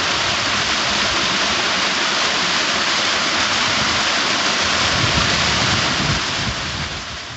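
Waterfall: a steady, loud rush of falling water, fading out near the end.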